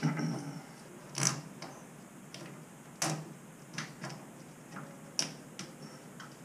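Small hand tool clicking and tapping against a metal fitting on the wall at a urinal connection, about six irregular sharp clicks with the loudest just over a second in.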